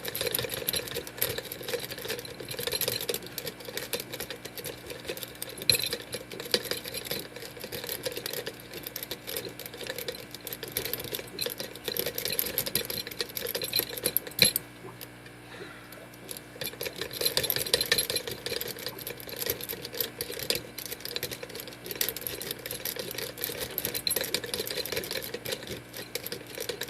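A worm rake scrubbed rapidly in and out of a Schlage SC1 five-pin deadbolt's keyway under tension: a fast, continuous rattle of metal-on-metal clicks and scraping from the pins, with a brief pause about halfway through. The pins do not set and the lock does not open to the rake.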